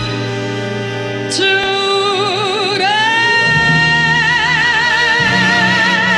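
Female vocalist with orchestra on the climax of a show ballad. The voice holds a note with vibrato, slides up about three seconds in, and sustains a high final note with wide vibrato as the orchestra swells beneath.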